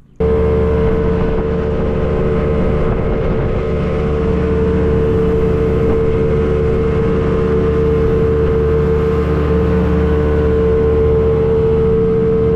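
Jet boat running steadily under way, its engine and jet drive giving a constant low rumble with a steady whine held at one pitch. The sound cuts in suddenly about a quarter second in.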